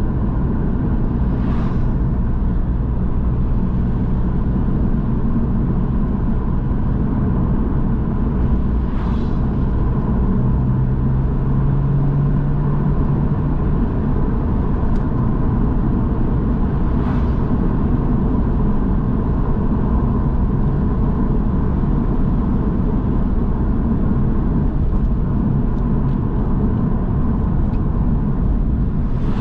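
Porsche 911's flat-six engine running steadily on the road, with tyre and road noise. The engine note grows stronger for a few seconds about a third of the way in.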